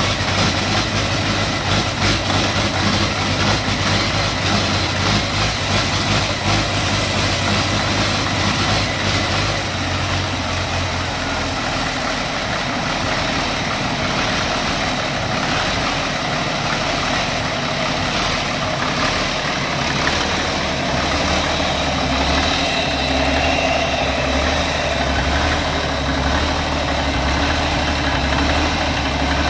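Caterpillar 1693TA turbocharged inline-six diesel engine running on a stand. Its speed drops about ten seconds in and settles to a slower idle later on. A thin, steady high whine from the turbocharger rides over the engine note.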